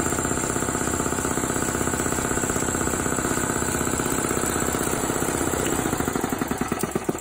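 CA3 series reciprocating air-compressor pump and its electric motor running with a rapid, even knocking pulse. Near the end it is switched off and begins to coast down, the pulses slowing and getting weaker.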